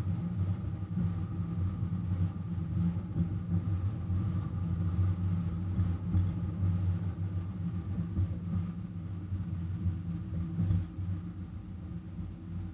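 Ridable miniature-railway locomotive running steadily as it hauls a train of passenger cars along the track, giving a low, even drone with a faint higher whine over it.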